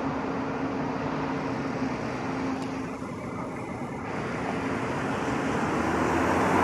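Road traffic noise with a steady vehicle engine hum, dipping briefly about three seconds in and then growing louder as a vehicle draws near.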